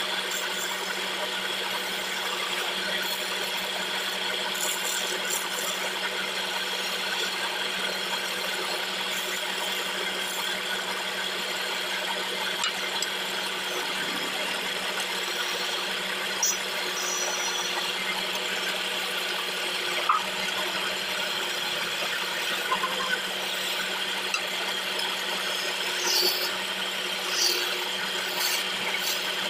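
Wood lathe running steadily with a low hum while hand-held turning chisels and a parting tool scrape and cut a spinning teak chair leg, a continuous rasping hiss of wood being shaved. A few brief sharp clicks come in the second half.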